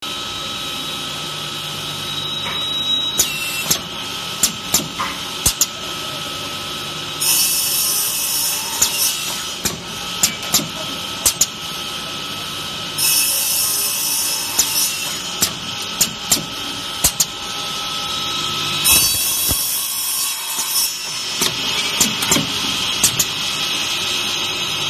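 Automatic copper tube cutting machine running: its circular saw blade cuts through copper tube in repeated cuts of several seconds each, about every six seconds, over a steady motor hum. Between cuts come clusters of sharp clacks from the clamping and feed mechanism.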